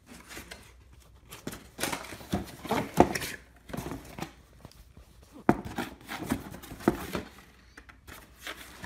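Cardboard box flaps being pulled open and handled: irregular rustling and scraping of cardboard, with sharp knocks about three seconds in and again about five and a half seconds in.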